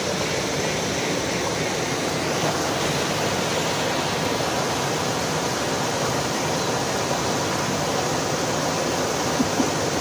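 Park fountain's water falling and splashing in a steady, unbroken rush.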